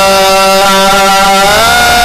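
Male Quran reciter's voice holding one long melodic note in tajweed style, drawing out the final vowel of 'Yā Zakariyyā'; the pitch slides upward about one and a half seconds in.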